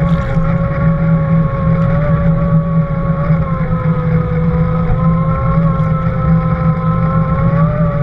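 Sport-fishing boat's engines and propellers heard underwater: a steady low hum with a higher whine that wavers slightly in pitch.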